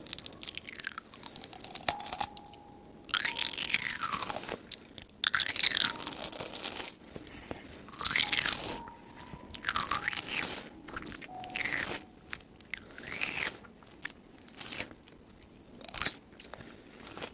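Crisp, crunchy food being bitten and chewed, a loud crunch every second or two.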